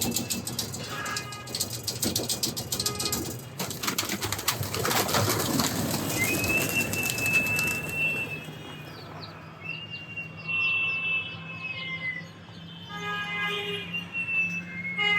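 Racing pigeons flapping and cooing as they are let out of the loft, with a clatter of wings in the first few seconds. After that come long, steady, high whistled notes, some ending in a falling glide.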